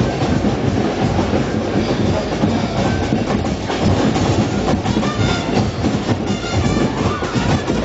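Carnival street band playing loud drums and percussion in a dense, driving rhythm, with a few brief high tones over it in the second half.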